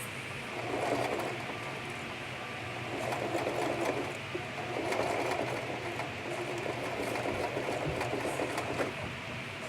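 Sewing machine stitching through doubled-over hair wefts in four runs, starting and stopping with short pauses between.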